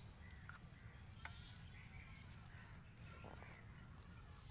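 Faint outdoor ambience: a steady high-pitched drone, a few short bird chirps, and a low rumble underneath.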